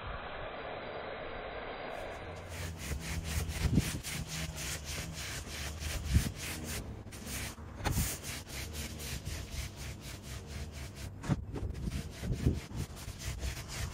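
Pressure washer spraying a cleaning mix through a foam lance: a steady hiss of spray. About two and a half seconds in it gives way to a machine hum under a fast, even rasping rhythm of about four strokes a second.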